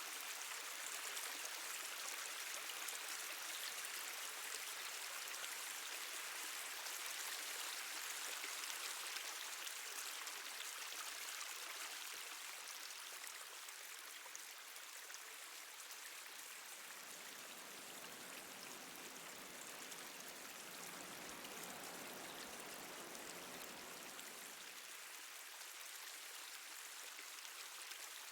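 Water dripping and trickling in a cave, over a steady hiss of running water. A deeper, lower rush joins for several seconds past the middle, then drops away.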